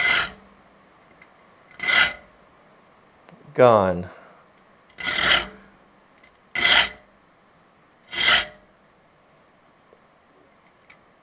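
Small file rasping across the steel teeth of a hand saw in five short, separate strokes. Each stroke sharpens a tooth until the flat spot of light on its tip disappears and the tooth comes to a point.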